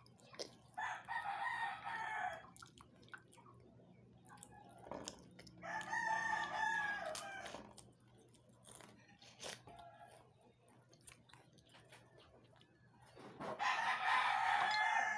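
A rooster crowing three times, each crow long and falling away at the end, about five to seven seconds apart. Between the crows there is faint crunching of crackers being chewed.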